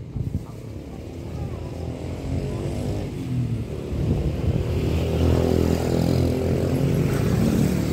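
A vehicle engine running close by, getting louder over the first few seconds and then holding steady. A couple of short knocks sound right at the start.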